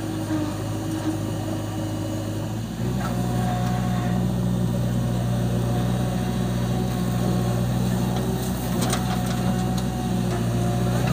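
JCB 3DX backhoe loader's diesel engine running, its note rising and growing heavier about three seconds in as the hydraulics take the load of lifting a full bucket of soil and swinging the boom, then holding steady.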